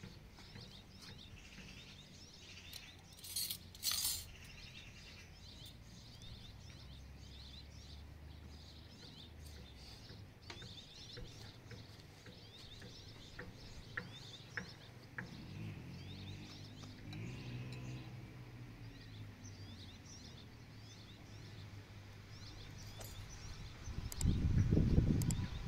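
Small birds chirping in the background, with occasional light clinks of spoons against ceramic soup bowls, and a brief louder noise near the end.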